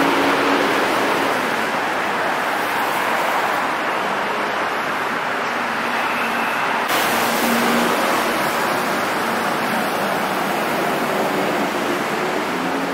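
Steady hiss of rain and traffic on wet city streets, with a faint engine hum underneath; about seven seconds in the hiss turns sharper.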